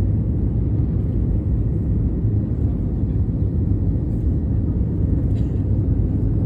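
Cabin noise inside an Airbus A320neo during takeoff: a steady low rumble of the engines and rushing air, heard through the fuselage.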